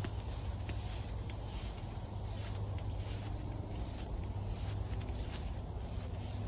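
Insects chirping in a steady, fast-pulsing high drone, with a low steady rumble underneath.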